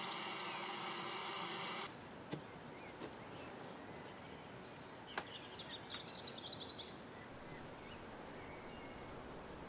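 Gas blowtorch flame hissing steadily as it heats a razor blade to red hot. About two seconds in, the hiss cuts off abruptly and a quiet stretch follows with a few faint clicks and brief high chirps.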